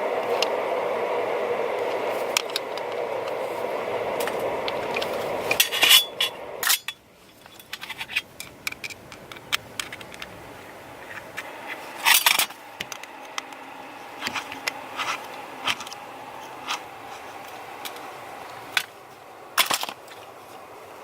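Metal parts and hand tools clinking, knocking and scraping in a series of short, irregular strikes, after a steady mechanical noise that stops about seven seconds in.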